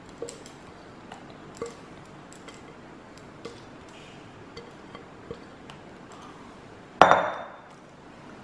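Scattered light clicks and taps of kitchenware, then one sharp, ringing clink about seven seconds in, like a utensil striking a glass mixing bowl.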